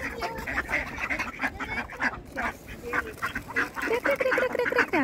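A flock of mallard ducks quacking, many short raspy calls overlapping without a break, as the birds crowd in to be fed.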